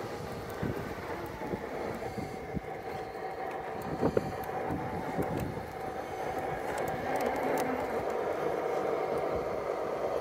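Axial SCX6 1/6-scale RC rock crawler climbing rock: its electric motor and geartrain give a steady whine that steps up in pitch a few seconds in, under the scrape and knock of its tyres and chassis on the stone, with a few sharper knocks about four seconds in.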